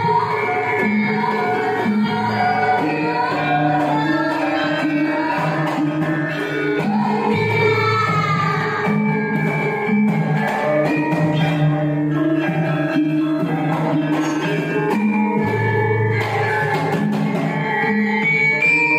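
Javanese gamelan ensemble playing: bronze metallophones and gongs with kendang drum, steady sustained notes throughout, in the accompaniment to a Bambangan Cakil dance.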